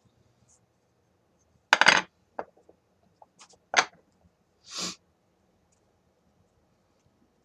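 A wooden broomstick clattering down onto a wooden work table about two seconds in, followed by a few lighter knocks and a sharp click, then a short, softer scrape.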